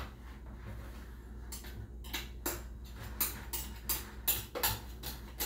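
A kitchen utensil scraping and knocking against a bowl, chipping at ice-cream mix that is still frozen hard. It is a quick, irregular run of short scrapes and clicks, two to three a second, starting about a second and a half in, over a faint steady hum.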